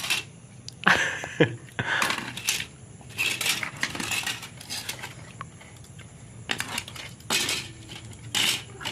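Scrap mobile-phone circuit boards clattering and clinking as they are sorted by hand and tossed onto piles on a concrete floor: a run of short, irregular clicks.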